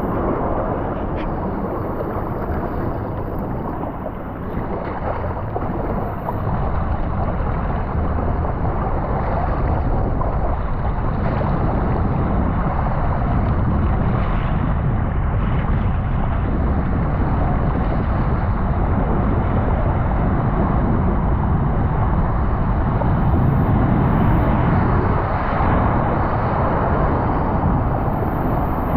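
Water rushing under and around a raft tube sliding down a water slide, with wind buffeting the microphone. The noise is steady and grows a little louder in the second half.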